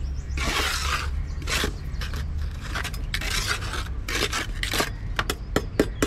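A hand trowel scraping in several short strokes across wet concrete in a steel block mould, smoothing the top. In the last second there are a few sharp clicks.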